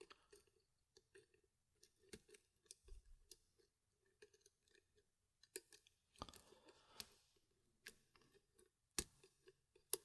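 Faint, irregular small clicks and scrapes of a lock pick and tension wrench working the pin stacks of a Schlage-cored Kryptonite padlock, with a few sharper clicks near the middle and near the end.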